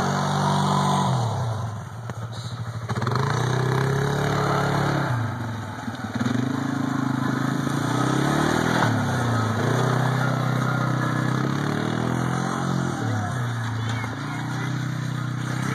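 ATV engine running as the quad is ridden, revving up and easing off again several times in a repeating rise and fall of pitch.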